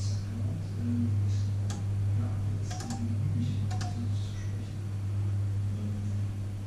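Panasonic inverter microwave oven running with a steady low hum, with a few sharp ticks around the middle.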